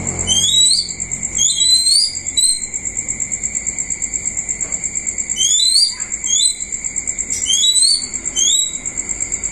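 Bird chirping: short, high, rising chirps in quick little series, several times over, over a steady high trill with a fast pulse.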